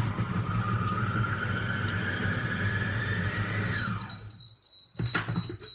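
Monsieur Cuisine food processor's chopping blade running at speed 6 for about five seconds, cutting feta and sun-dried tomatoes: a steady motor whine that rises in pitch as it runs, then winds down about four seconds in. A couple of sharp knocks follow near the end.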